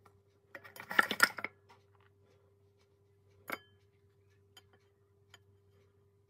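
Handling sounds of bamboo-skewered, sugar-coated fried banana over a bowl: a quick cluster of scraping clicks about a second in, then a single light clink a couple of seconds later, over a steady low hum.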